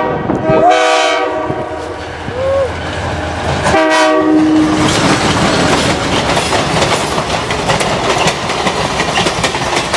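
Passenger train's locomotive horn sounding, ending about a second in, then one more short blast about four seconds in, followed by the loud rumble and clickety-clack of the train's cars rolling past on the rails.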